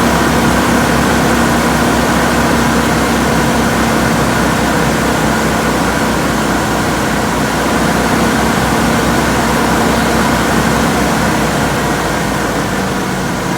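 Machine running with a steady drone, a hum and a higher whine; the hum's pitch sags slightly near the end. This is the sound the owner calls abnormal.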